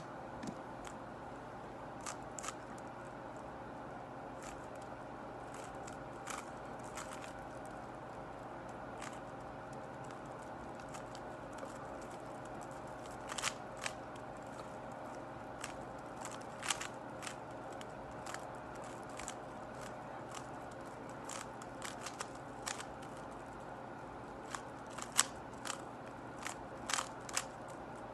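Faint, irregular clicks of a MoYu Weilong GTS2M speedcube's layers being turned during a solve, with a sharp click right at the start and a few quick clicks together near the end, over a steady background hum.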